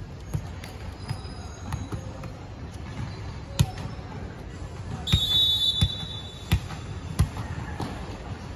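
A referee's whistle blown once for under a second, a little past the middle. Around it, a ball is bounced on the hard court: a sharp thud just before the whistle, then four even bounces about 0.7 s apart.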